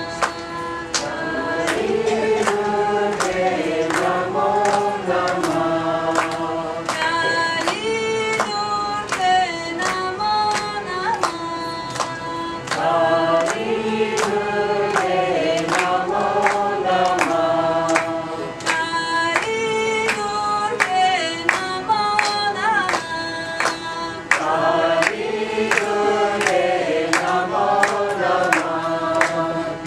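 Kirtan: a group of voices chanting a devotional melody together with musical accompaniment, over a steady beat of sharp percussive strokes.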